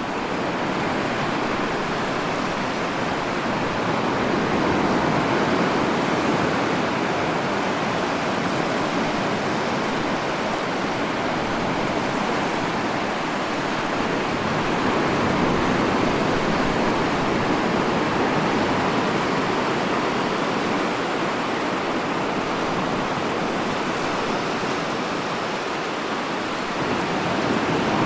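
Ocean surf: a steady wash of waves, swelling and easing slowly every several seconds.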